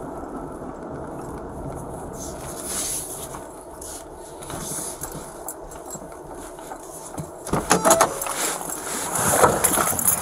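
Steady low cabin rumble of a Ford SUV rolling slowly, then a few sharp clacks about seven and a half seconds in as it stops. Clatter and rubbing follow near the end as the driver's door is opened.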